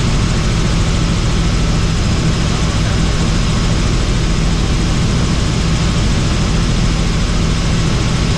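Helicopter in flight: a steady, loud drone of rotor and turbine engine at constant speed, without change.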